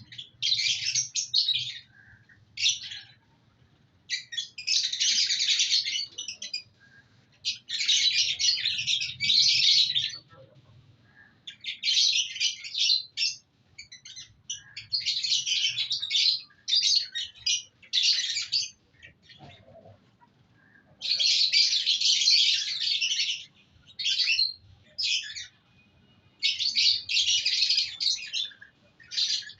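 Flock of lovebirds chattering in shrill bursts of chirps, each lasting a second or two, with short pauses between.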